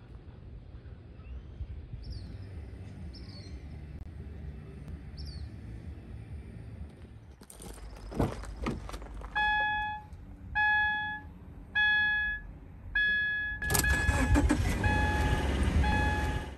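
A car door opening and shutting, then the car's warning chime beeping steadily, about once every 1.2 seconds. Near the end the engine starts and runs loudly while the chime keeps going. Before that, quiet outdoor air with a few faint bird chirps.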